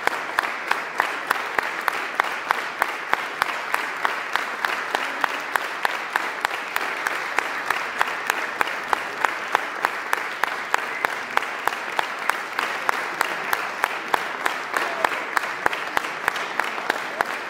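Audience applauding, with sharp claps in a steady, even rhythm of about two or three a second standing out above the general clapping.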